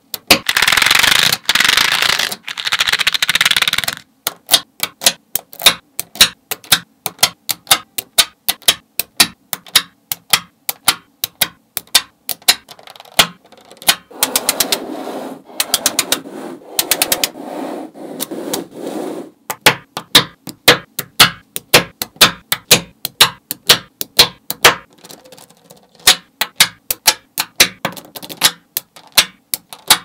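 Small magnetic balls clicking sharply together as sticks and blocks of balls are snapped into place, many clicks in quick succession. Early on and again in the middle there are stretches of continuous rattling as strips of balls are slid and pushed across the tabletop.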